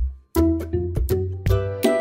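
Background music with a steady beat of deep bass notes and sharp percussion. It drops out for a moment right at the start, then carries on.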